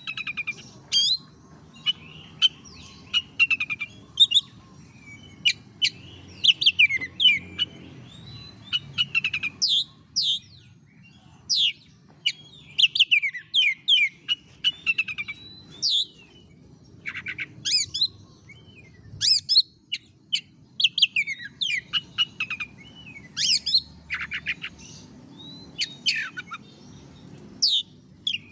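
Oriental magpie-robin singing a loud, varied song of rapid whistled sweeps and chattering notes in short phrases with brief pauses between them. A steady high-pitched whine runs behind it.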